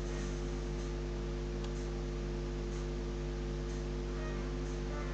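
Steady electrical mains hum, a low buzz with several pitches stacked above it. A few faint light ticks sound now and then.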